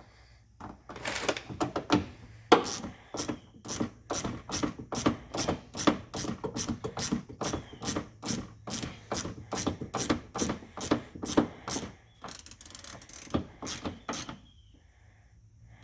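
Hand ratchet clicking in steady back-and-forth strokes, about two clicks a second, as it works a screw in a car door; the clicking stops near the end.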